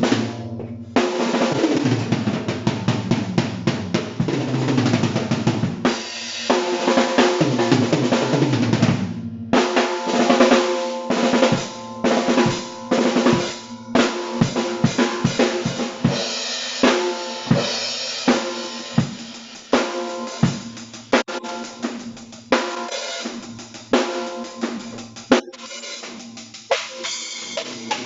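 Tama Imperialstar acoustic drum kit being played: grooves and fills on bass drum, snare and toms with cymbals, broken by a couple of short stops, one near the start and one about nine seconds in.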